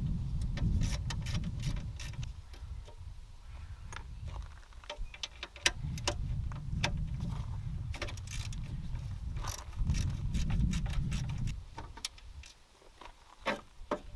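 Hand tools at work on metal parts: irregular sharp clicks and clinks, over stretches of low rumbling handling noise that die away about twelve seconds in.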